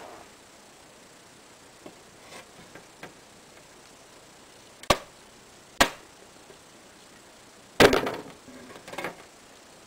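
Camera handling noise: two sharp clicks about a second apart, then a louder clattering knock with a short rattle after it as the camera is moved, and a smaller knock just before the end.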